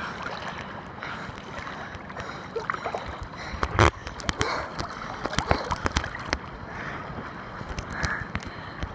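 River water splashing and lapping right at a camera held at the surface by a swimmer, with frequent small knocks and one louder thump about four seconds in.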